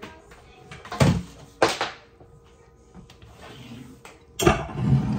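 Dishes knocked on a kitchen countertop: two sharp knocks about a second apart, then a rushing scrape starting near the end as the bowl of batter is moved.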